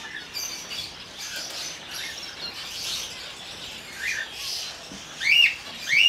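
A flock of cockatiels chirping, with two louder arched calls that rise and fall near the end.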